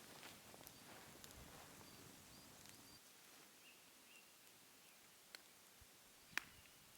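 Near silence in woodland: faint, short, high bird chirps now and then, and a few sharp clicks, the loudest about six seconds in.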